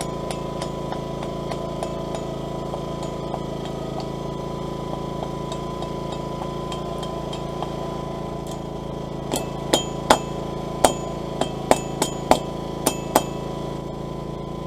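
Blacksmith's hammer striking hot steel bar stock on an anvil to bend a hook: about ten sharp, ringing blows from about nine seconds in, after faint regular light ticks, over a steady drone.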